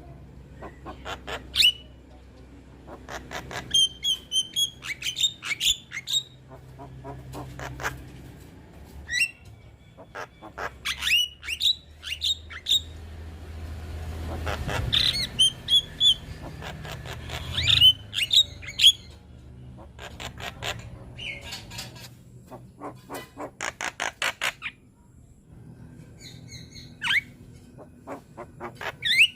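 Young Javan myna (jalak kebo) singing in bursts: fast trains of dry clicks and rattles mixed with short, sharp whistled notes and harsh squawks, with brief pauses between phrases.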